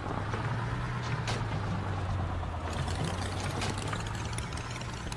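Cartoon vehicle engine sound effect: a steady low idling hum, with a faint wavering tone above it and a few light clicks.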